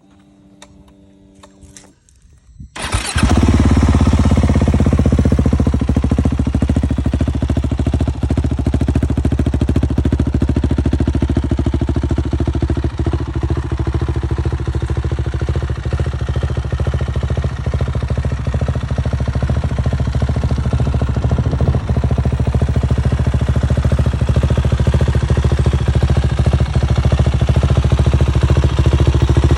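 KTM 690 SMC R single-cylinder engine starting about three seconds in, after a brief faint hum, and then idling steadily.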